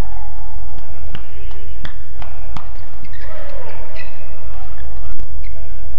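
Badminton rackets striking a shuttlecock in a quick series of sharp hits, about three a second for a couple of seconds, followed by a voice calling out near the middle, over a steady low hum.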